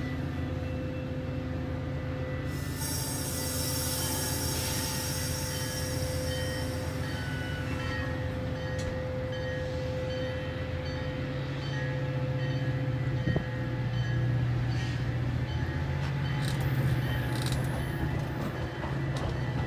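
Metra bilevel commuter train cars rolling past, a steady rumble of wheels on rail with a held tone running through it. A high squeal joins about three seconds in and fades after several seconds, and the low rumble grows louder past the halfway point.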